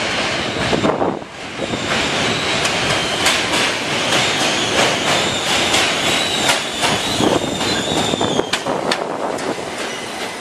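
New York City subway train running past, its wheels clacking over rail joints, with a high steady wheel squeal setting in about two seconds in and dying away near the end.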